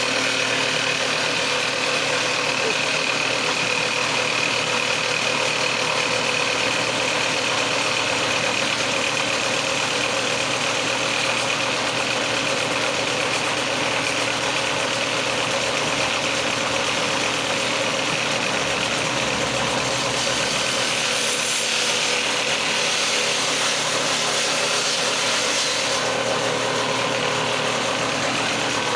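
Electric woodworking power tool running steadily, its motor giving a continuous hum with a steady whine.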